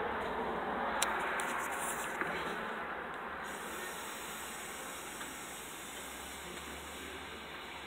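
A steady hiss that slowly fades, with a single sharp click about a second in.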